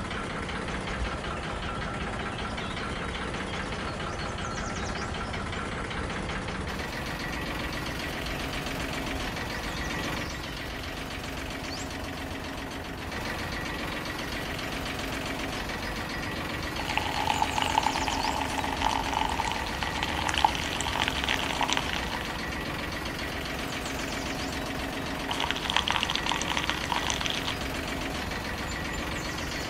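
Miniature model single-cylinder stationary engine running steadily, belt-driving a toy grinder. Twice in the second half, louder rattling bursts come as grapes are fed through the grinder.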